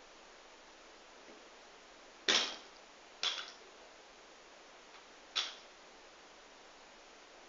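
A loaded barbell with bumper plates comes down onto the gym floor with a knock about two seconds in, followed by two lighter clanks of the bar and plates as it is handled, over faint room hiss.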